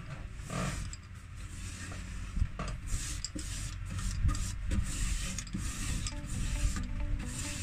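Paintbrush bristles rubbing across an old wooden cabinet floor as a dark wood finish is brushed on, in quick repeated strokes.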